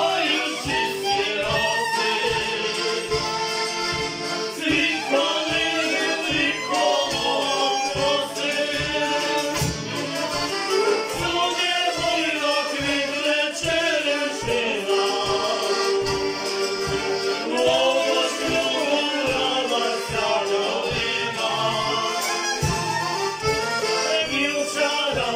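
Hutsul folk band playing a lively tune on fiddle, accordion and tsymbaly (hammered dulcimer), with a steady beat of about two to three pulses a second.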